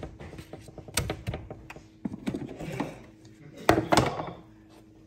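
Kitchen clatter: scattered knocks and clinks of dishes or utensils, the loudest pair a little before four seconds in, over a faint steady hum.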